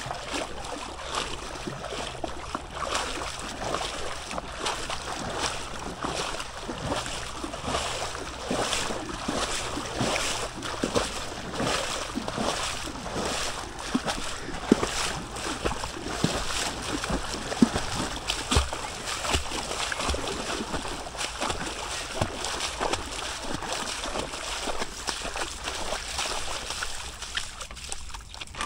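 Flood-swollen river water rushing and splashing with constant irregular splashes.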